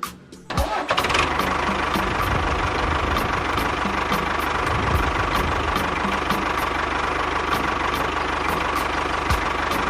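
A motor running steadily with a whine, starting about half a second in and stopping near the end, with faint regular ticks over it.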